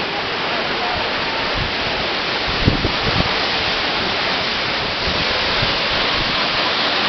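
Waterfall rushing steadily, a continuous roar of falling water, with a few brief low bumps about three seconds in.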